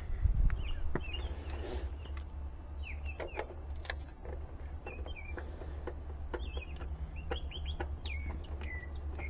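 Small birds chirping: many short, quick gliding notes over a steady low hum, with scattered clicks and a dull thump about half a second in.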